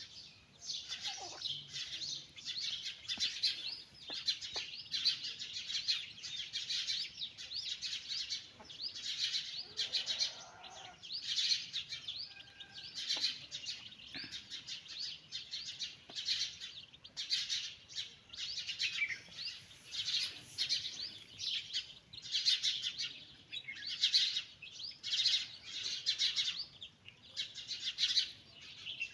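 A brood of domestic chicks peeping constantly, many high-pitched chirps overlapping. A brief lower-pitched call comes about ten seconds in.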